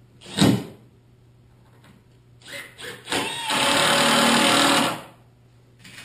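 Power drill driving a drywall screw down into OSB sheathing: the motor winds up and runs steadily for about a second and a half, then stops. A short sharp knock comes about half a second in.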